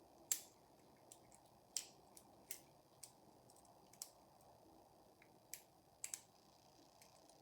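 Faint, irregular clicks, about a dozen, from a half-diamond lock pick working the pin stack of a Eurospec euro cylinder under tension. The lock is in a full set, with the core counter-rotating as the back pin is pushed.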